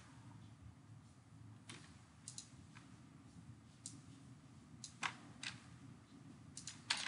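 Scattered computer mouse clicks and keyboard key presses, a dozen or so short faint clicks with a quicker cluster near the end, over a low steady hum.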